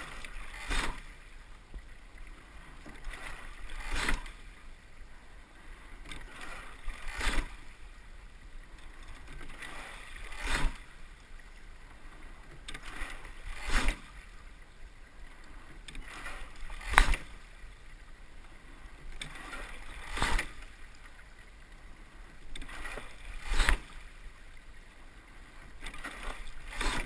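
Two-person rowing shell under way at a slow, steady stroke rate: a sharp clack of oars and oarlocks with each stroke, about every three seconds, nine in all, with water rushing along the hull between strokes.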